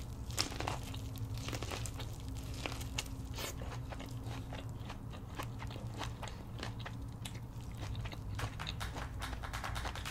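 Close-miked eating sounds: a person chewing seafood boil, with many short crunches and clicks.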